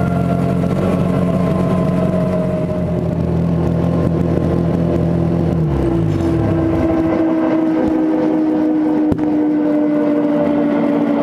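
Mosquito XE helicopter's engine running evenly, then dropping in pitch and stopping about six seconds in. A steady whine, slowly falling in pitch, carries on after it, and there is a single click near the end.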